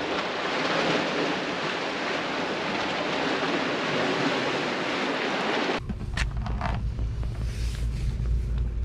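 Steady wash of sea waves and wind on the open water. About six seconds in it changes abruptly to a low rumble of wind on the microphone, with a couple of faint clicks.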